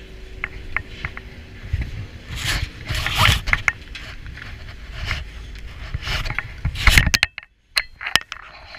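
Scraping, rustling and knocking as skiers board a moving chairlift chair, with sharp knocks about seven seconds in. Then a glove and jacket rub against the camera and briefly muffle it to near silence.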